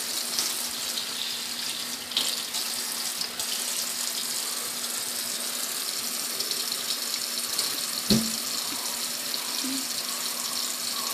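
Water running from a tap into a sink as a steady hiss, with a single knock about eight seconds in.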